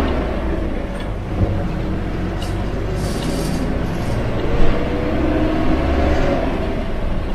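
Yangtze River Jingcheng front-engined city bus under way, its engine running with the pitch rising and falling as it changes speed. A brief hiss comes about three seconds in and a short knock a little later.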